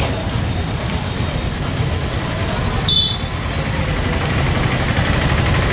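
Street noise: a steady low rumble with a brief high-pitched chirp about three seconds in.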